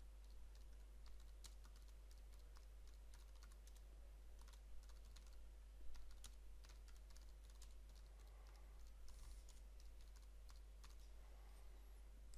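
Faint typing on a computer keyboard: a run of irregular key clicks as text is entered.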